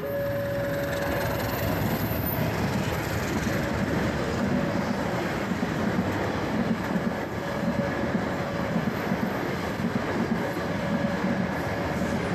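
Passenger train passing over a level crossing close by: a steady rumble of the carriages, with the wheels clattering irregularly over the rail joints. A faint steady tone comes and goes above it.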